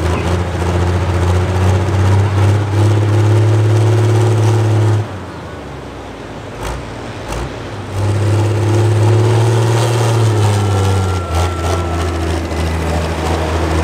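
Diesel engine of a John Deere Pro Stock pulling tractor running at a steady pitch. It drops back quieter about five seconds in and picks up again about three seconds later.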